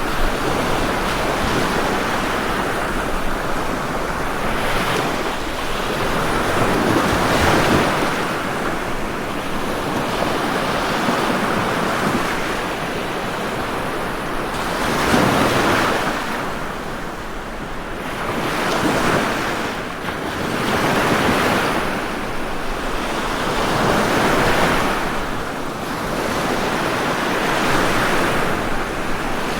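Ocean waves breaking on a shore, a steady wash of surf that swells and falls back every few seconds.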